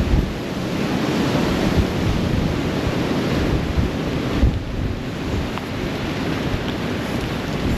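Wind buffeting the microphone: an uneven rushing roar, heaviest in the low rumble.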